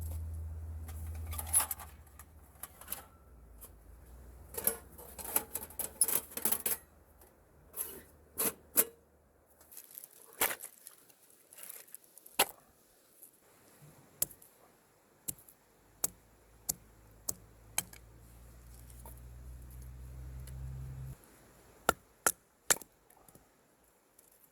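Scattered sharp clicks and knocks, irregular and some loud, over a low hum that comes in two stretches and cuts off suddenly about 21 seconds in.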